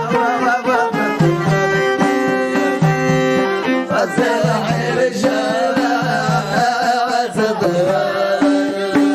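Traditional Amazigh music: a melodic instrument playing held notes over a steady, repeating beat.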